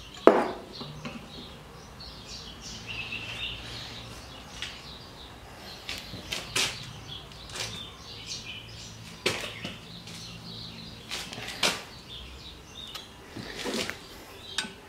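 Hand die in a die stock cutting a thread onto a mild steel rod clamped in a bench vise: scattered metallic clicks and creaks as the die bites and the handle is turned, with a sharp knock just after the start. Faint bird chirps in the background.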